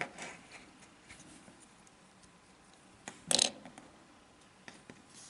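Faint clicks and light scrapes of small plastic Lego-style minifigures being handled and set standing on a tabletop, with one louder, short hiss-like scrape about three seconds in.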